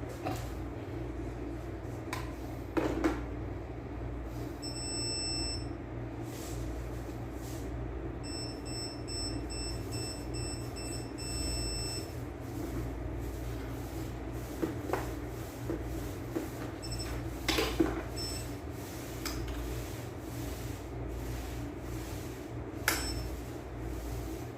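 Fujikura fiber fusion splicer working through a splice: a steady low hum with two spells of a thin high electronic whine, a short one about five seconds in and a longer one from about eight to twelve seconds, and a few light clicks.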